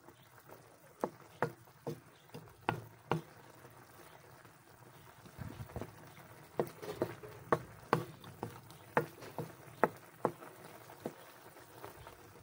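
Wooden spatula stirring simmering chicken and tofu in sauce in a wok: irregular light knocks against the pan, often one or two a second, with wet stirring in between.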